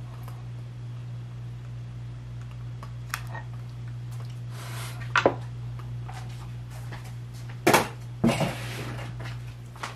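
Light knocks and clinks from handling a metal candle lid and a long-neck lighter, the loudest two close together near the end, over a steady low hum.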